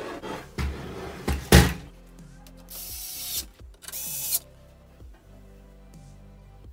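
Metal knocks and clunks from the steel chassis of a Sony stereo being handled, the loudest about one and a half seconds in, then two short runs of a cordless electric screwdriver driving a screw, about three and four seconds in. Background music plays underneath.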